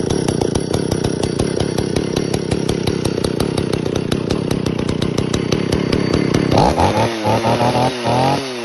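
Stihl 041 chainsaw's 61 cc two-stroke engine running steadily, then revved up and down in a few quick throttle blips over the last two seconds.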